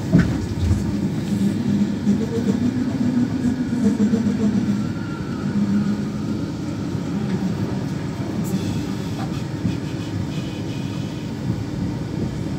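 Mark 4 intercity train, a steady low rumble with a wavering drone, and one sharp knock right at the start.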